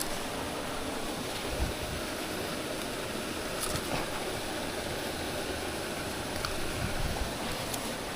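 Steady outdoor rushing of wind and water, with a few faint clicks.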